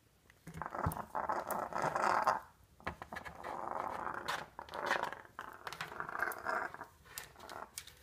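African grey parrot growling a fierce defensive threat growl in three long bouts, with sharp clicks in between.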